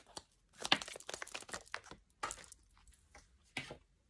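A deck of oracle cards being shuffled by hand: clusters of quick, papery flicks and taps as the cards slide and slap against each other, with short pauses between the clusters.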